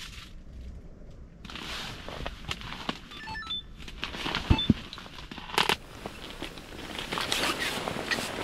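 Irregular rustling and crackling handling noise, starting about a second and a half in and growing denser towards the end, with a couple of sharp knocks about halfway through.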